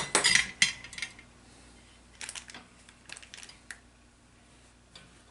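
Light clicks and taps of small objects being handled on a workbench. They come in two clusters: one in the first second, then another from about two to nearly four seconds in.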